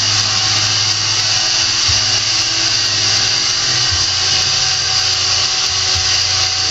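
Steady machine whir: a loud, even hiss with a low hum underneath that dips briefly about every two seconds.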